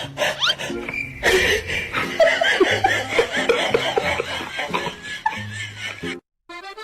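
People laughing over background music; the sound cuts out abruptly about six seconds in.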